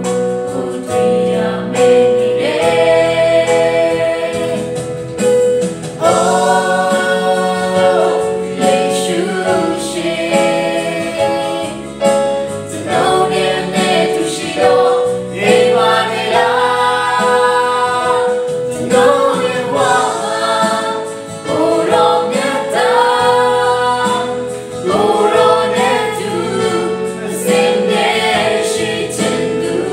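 Christian worship song: voices singing together over a sustained accompaniment that holds long notes beneath the melody.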